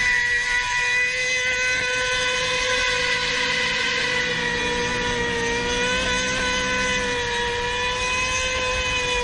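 Engine running at steady high revs, one high, even note that wavers slightly in pitch. A second, lower engine note joins it between about three and seven seconds in.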